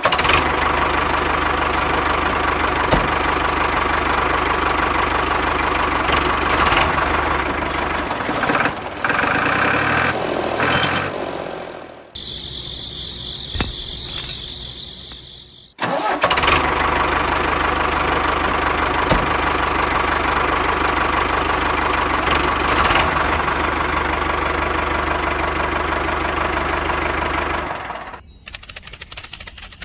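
An engine running steadily. It cuts out about twelve seconds in, while a different, higher ringing sound plays for about four seconds, then starts running again. It stops again near the end, and a rapid, even ticking follows.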